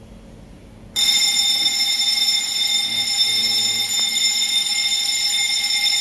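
Building fire alarm sounding with a loud, steady ringing tone that starts about a second in. The smoke detector under test has picked up the tester's test smoke and tripped the alarm.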